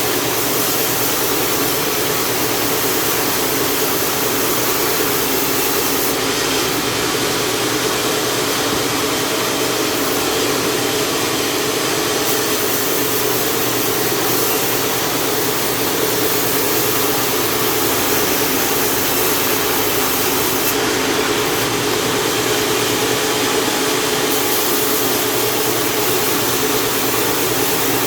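Engine-driven saw running steadily as it rips lengthwise through a large jengkol log, a loud, unchanging drone.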